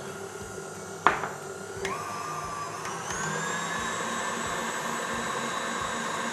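KitchenAid stand mixer with a wire whisk running in a cocoa batter: a sharp knock about a second in, then the motor whine starts and steps up in pitch about three seconds in as the mixer speeds up, then runs steady.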